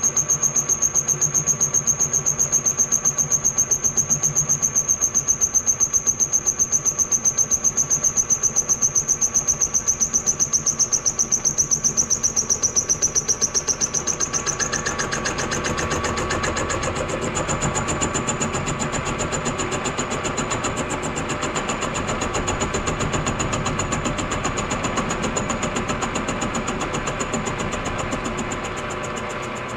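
Milling machine spindle running a boring head that cuts a valve relief into a piston crown, with a steady high whine and a fast, even pulse from the cutter. About halfway through the whine fades and the cutting turns noisier, then it eases off near the end.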